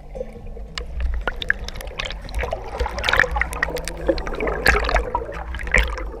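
Creek water splashing and gurgling as it cascades over boulders at a waterfall, with many irregular splashes over a low rumble.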